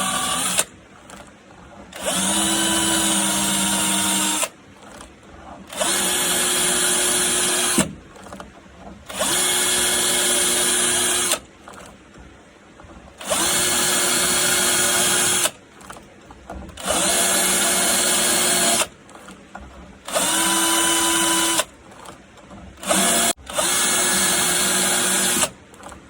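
Drill spinning a round chainsaw file in reverse against the cutters of a chainsaw chain, sharpening them. It runs in about eight bursts of one to two seconds, each spinning up quickly, with pauses of about a second between them.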